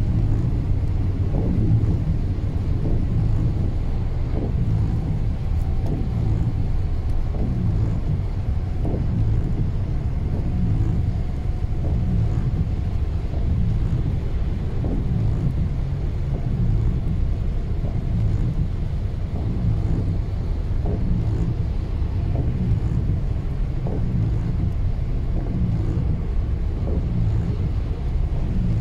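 Car interior noise while driving on a rain-soaked highway: a steady low rumble of tyres on the wet road and the running car, heard inside the cabin.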